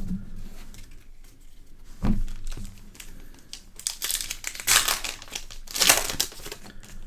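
Foil trading-card pack wrapper being crinkled and torn open, the crackling heaviest in the second half, with a soft knock about two seconds in.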